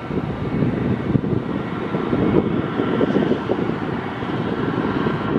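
Airbus A319 airliner's jet engines on the runway: a steady jet noise with a faint high whine, under heavy low rumble from wind on the microphone.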